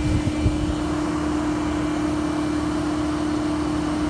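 130-ton plastic injection molding machine running steadily with its mold clamped shut: an even hum carrying one constant tone.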